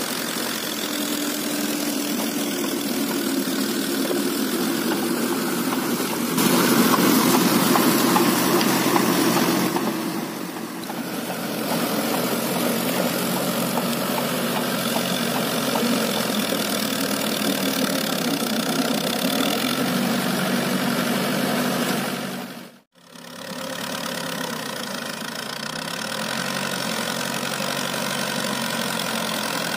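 A Mahindra 575 DI tractor's four-cylinder diesel engine running steadily while it pulls a rotavator through flooded paddy mud. It gets louder for a few seconds about a quarter of the way in, and there is a brief dropout about three-quarters of the way through.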